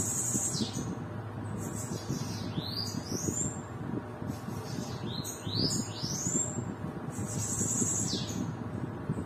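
Bananaquit singing: about four high, buzzy, hissing song phrases with sweeping rises and falls, in short bursts a second or two apart.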